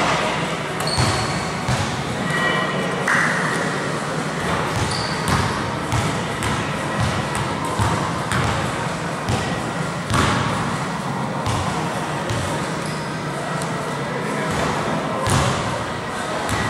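Basketball bouncing and thudding on a gym floor during a solo shooting drill: a handful of separate ball impacts a second or more apart, with a few brief high squeaks from sneakers, over a steady hall hiss.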